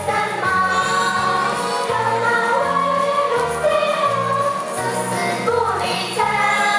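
Song with singing over a pulsing bass line, played as the backing music for a dance routine.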